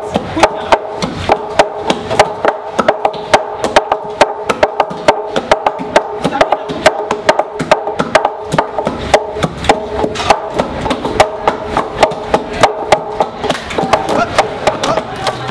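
Long wooden pestles thudding into a large mortar of boiled yam as several people pound fufu in quick turns, about four strokes a second, with the strokes thinning out near the end. Background music plays underneath.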